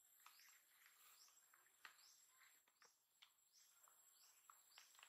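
Near silence: faint outdoor ambience of short high chirps a few times a second over a thin, steady high whine.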